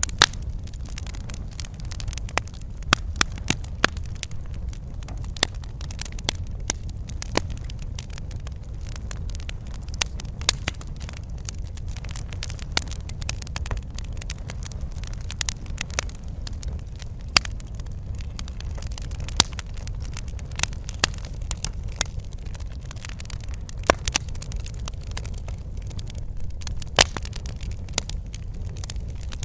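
Wood fire crackling in a fireplace: a steady low rumble of flames with frequent sharp pops and snaps at irregular intervals.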